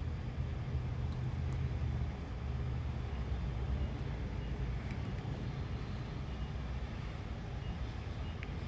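A vehicle engine running steadily, a low rumble that eases slightly after about three seconds, with a few faint clicks.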